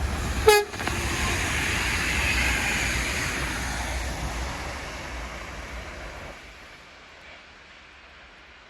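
A train horn gives one very short, sharp toot about half a second in. The rushing noise of the passing train follows and fades away over the next several seconds.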